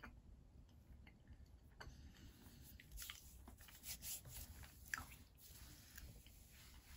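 Faint mouth sounds of someone chewing chocolate: small wet clicks and smacks, thickest and loudest between about three and five seconds in.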